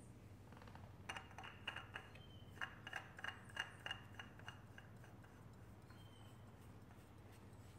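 A new spin-on oil filter being handled and threaded by hand onto the filter mount of a John Deere 332's Yanmar diesel engine: a quick run of faint clicks and scrapes from about a second in until about five seconds in, over a low steady hum.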